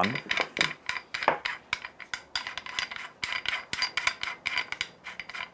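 Plastic adjustment ring of a Lido 3 hand coffee grinder being turned onto the grinder body's threads by hand: a quick run of small, irregular clicks and scrapes as the parts rub and catch.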